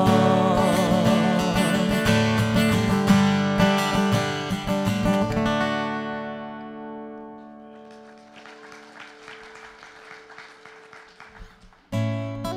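Worship music with acoustic guitar: the band's final chord of the hymn rings and fades away over about six seconds. About twelve seconds in, acoustic guitar strumming starts again, opening the next song.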